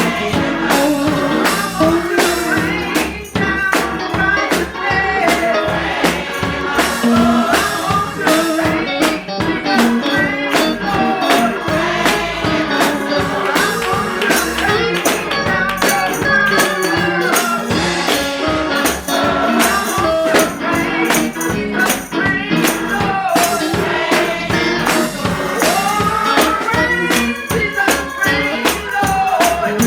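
Live gospel worship music: voices singing over a band, with a tambourine shaken and struck in a steady beat.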